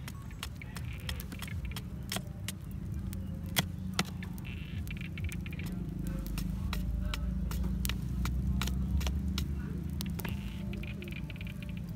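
A knife chopping at the end of a wooden stick, a string of irregular sharp knocks with two louder strikes about four seconds in, over a steady low rumble.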